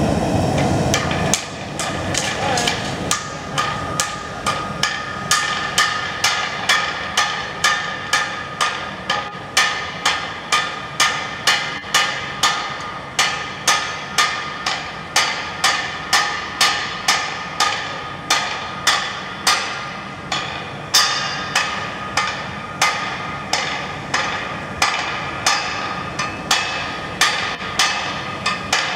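Forge fire rushing for about the first second, then a steady rhythm of ringing hammer blows on red-hot steel on an anvil, a little under two strikes a second.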